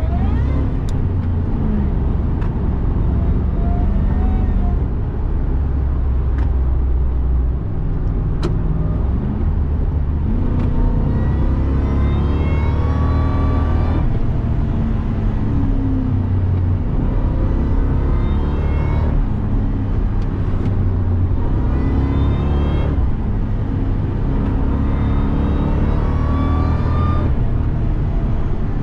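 Supercharged 5.4-litre V8 of a 2002 Ford F-150 SVT Lightning pulling hard, revs climbing and dropping several times as it runs through the gears. A high whine, the supercharger, rises with each pull.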